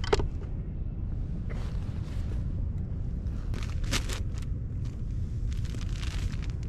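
Steady low rumble of wind on the microphone, with a few short rustling crunches of a person moving about and handling a plastic sack on garden soil.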